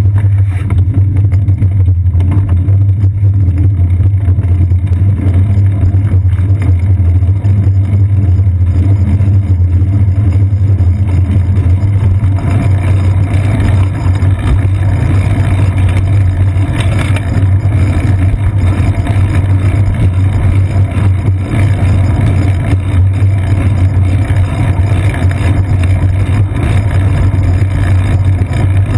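Steady low rumble of wind and road vibration picked up by a GoPro Hero 2 in its housing on a moving bicycle's seat post, with street traffic mixed in.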